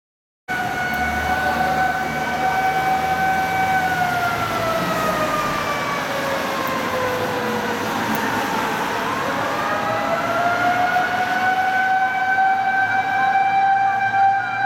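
Japanese fire engine siren wailing on an emergency run: a long held tone that slowly falls from about four seconds in, then climbs back up and holds again, over the truck's engine running.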